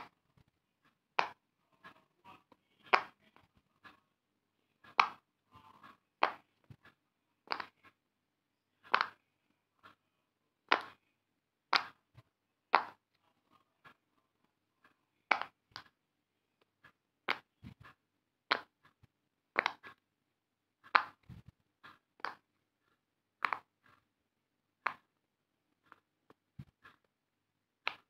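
Silicone pop-it fidget toy bubbles being pressed through one at a time by fingers, each giving a short sharp pop. There are about twenty pops at uneven gaps of roughly a second, with faint soft taps between them.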